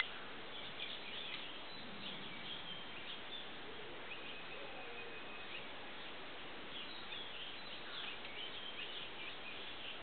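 Steady background hiss with faint, scattered bird chirps and calls, including a short held whistle near the middle.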